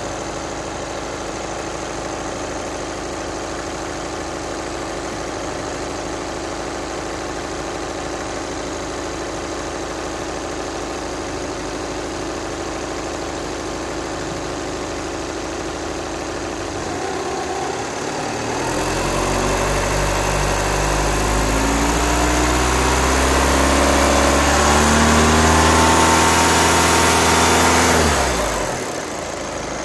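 Vehicle engine idling steadily, then revved. From about two-thirds of the way through it climbs in pitch and loudness for roughly ten seconds, then drops back sharply near the end.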